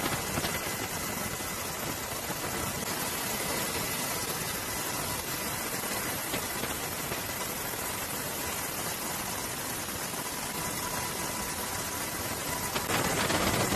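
Steady engine-like drone with hiss and faint steady whining tones, growing louder and brighter near the end.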